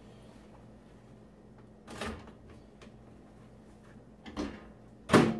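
Countertop microwave oven door being opened and shut, giving three knocks: a clunk about two seconds in, a softer knock about four seconds in, and a loud slam near the end as the door closes.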